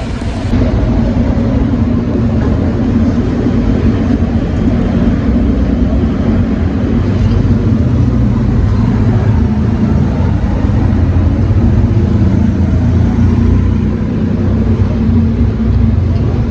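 A steady, loud low mechanical rumble from a running machine.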